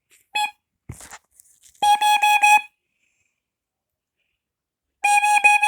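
First Alert (BRK Electronics) carbon monoxide alarm sounding on test: a short chirp and a knock, then a group of four quick, loud beeps and, after a pause of about two seconds, another group of four. The four-beep groups are the carbon monoxide alarm pattern.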